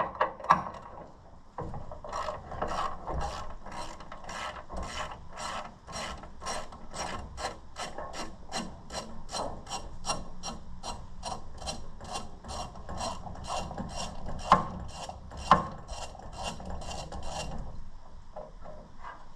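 Hand ratchet wrench working a bolt, clicking in steady back-and-forth strokes about two to three a second, with two sharper metal knocks near the end.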